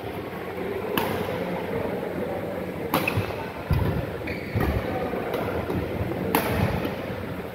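Badminton rally: sharp cracks of rackets striking the shuttlecock, a second or two apart, with low thuds of footwork on the court floor over a steady background hum.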